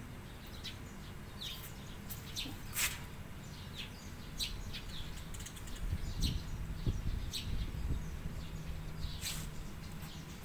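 Birds chirping: scattered short, sharp high chirps over a steady low hum, with a low rumble swelling in the middle.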